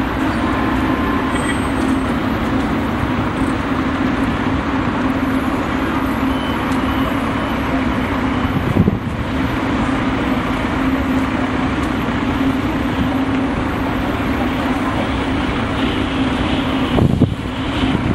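Steady motor-vehicle running and road noise with a continuous low hum, broken by a short knock about halfway through and a louder jolt near the end.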